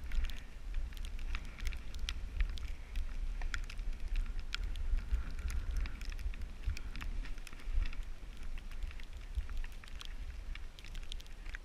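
Wind buffeting the camera's microphone in a low, uneven rumble, with many scattered sharp clicks and crackles over it.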